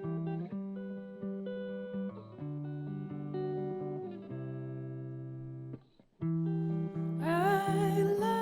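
Guitar playing the opening of a slow song in sustained picked chords, breaking off briefly about six seconds in; near the end a voice comes in singing over it.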